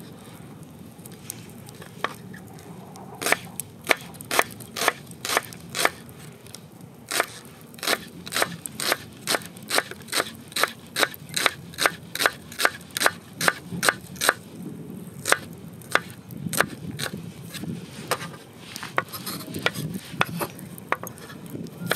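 Kitchen knife slicing an onion on a wooden cutting board: a run of sharp knocks, about two to three a second, from about three seconds in. Near the end it turns to lighter, quicker chopping.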